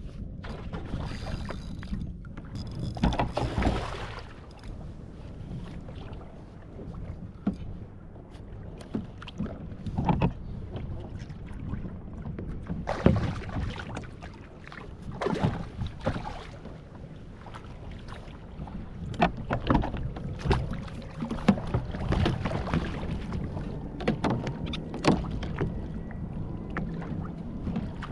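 A kayak moving on open water: irregular splashes and water sloshing against the hull every few seconds over a constant low rumble of wind on the microphone.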